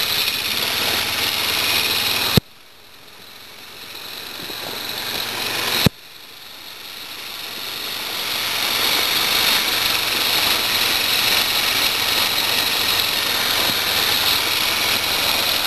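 Quad bike engine running while being ridden along a dirt track, heard from the rider's seat as a steady noisy drone. Two sharp clicks, about two and a half and six seconds in, are each followed by a sudden drop in level that builds back up over a few seconds.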